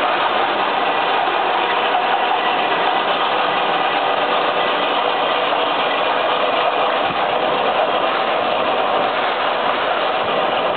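Concept HD 50 industrial paper shredder running steadily as paper is fed in and cut: a loud, even motor-and-cutter noise.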